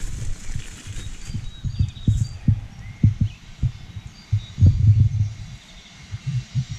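Irregular low thuds and rumble close to the microphone, the strongest cluster a little after the middle, with faint short bird chirps in the background.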